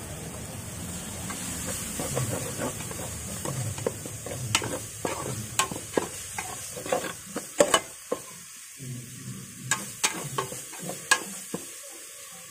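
Metal spatula scraping and clinking against the bottom of an aluminium pot while a lemongrass and prahok paste is roasted, over a steady sizzle. The sharp scrapes come irregularly, the loudest a little past the middle.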